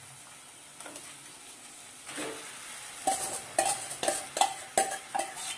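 Metal spoon scraping marinated chicken out of a steel bowl into a pot of frying onions, with the oil sizzling faintly underneath. From about three seconds in, the spoon knocks repeatedly against the steel bowl in a quick series of ringing clanks.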